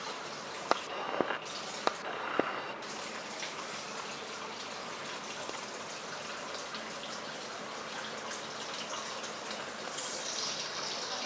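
Steady rushing background noise, like running water, with four sharp clicks in the first two and a half seconds.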